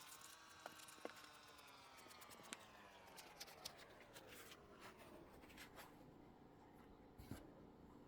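Faint handling of a foam banana squishy: small scratchy clicks and taps scattered through. Under them, a faint steady tone slowly rises and then falls away, fading out about five seconds in.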